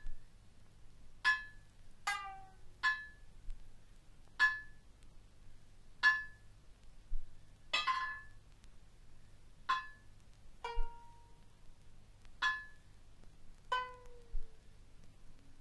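Sparse plucked notes from a sanxian (three-stringed lute) mixed with strikes on a small frying pan. A single sharp attack comes about every one to two seconds, and several ring at the same bright pitch. A few plucked notes slide down in pitch as they die away.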